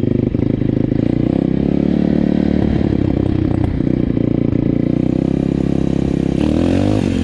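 Pit bike engine running under way, pulling at steady revs, with the pitch shifting as the revs change near the end.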